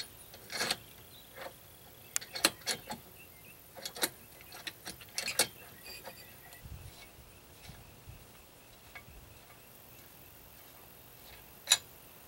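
Irregular sharp metallic clicks and clinks as a wrench turns the screw of a bolt-type puller, drawing the bearing housing out of an Evinrude 9.9 outboard's lower unit. The clicks come several to a second in the first half, thin out, and one louder clink comes near the end.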